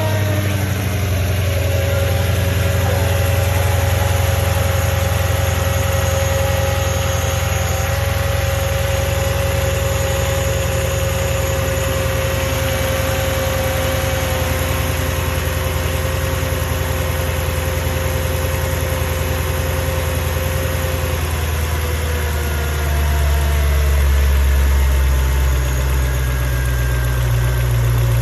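Mercedes E55 AMG's 5.4-litre V8 idling just after a cold start, its fast idle easing slowly down. About three-quarters of the way through, the low rumble gets heavier and lumpier as the revs settle. The owner says it sounds as if it is misfiring, though no fault codes are stored.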